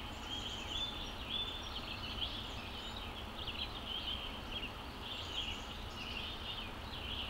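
Background birdsong: several small birds chirping and trilling steadily without a break, over a faint low rumble of ambient noise.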